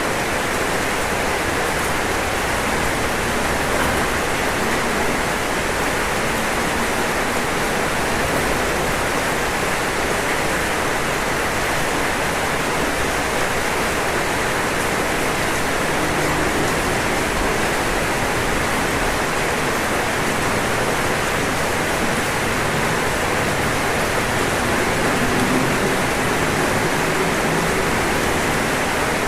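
Steady rain falling on a roof, a dense even hiss without breaks.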